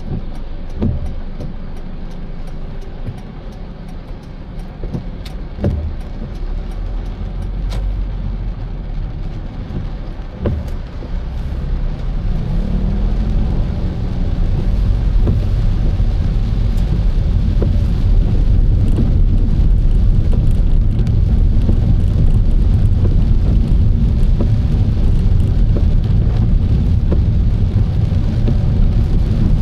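Car driving on a wet road: a steady low rumble of engine and tyres, with a few short thumps in the first ten seconds. It grows louder over a few seconds about halfway through as the car picks up speed, then holds steady.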